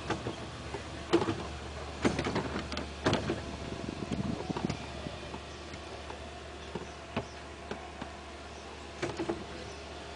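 Steady electric motor hum of an amusement-park ride car, with a run of sharp knocks and clatters over the first five seconds and a few more near the end.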